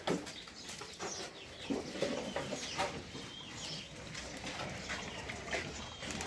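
Birds chirping, with many short calls overlapping and a few brief knocks among them.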